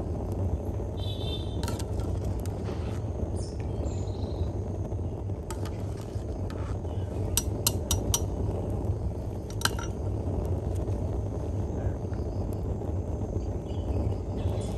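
Metal cooking utensils and pots clinking: a quick run of four sharp clinks about halfway through and one more a couple of seconds later, over a steady low rumble.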